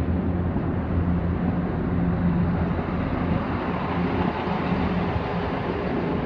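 Chiltern Railways Class 168 Turbostar diesel multiple unit pulling out past the platform, its underfloor diesel engines giving a steady drone over the rumble of the train.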